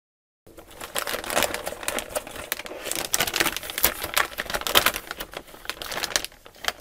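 Shiny anti-static bag crinkling and crackling in quick, irregular bursts as a motherboard is pulled out of it, starting abruptly about half a second in.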